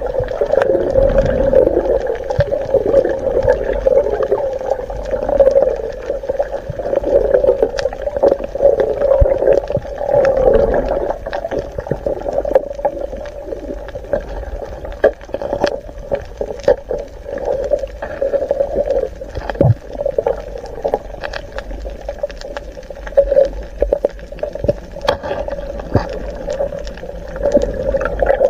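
Muffled underwater water noise picked up by a submerged camera, with a continuous churning hum and many scattered sharp clicks and crackles.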